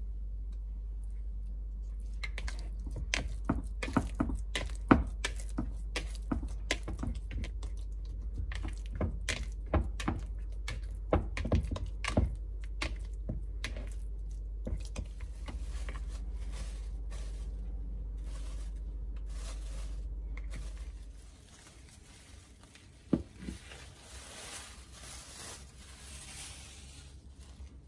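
Hands kneading sticky potato bread dough in a ceramic bowl: many short sticky clicks and slaps over a steady low hum. The hum stops about 21 seconds in, followed by one knock and a soft rustle.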